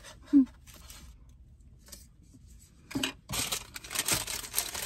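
Food wrapping crinkling and rustling, starting about three seconds in after a near-quiet stretch, as packaging on the lunch tray is handled.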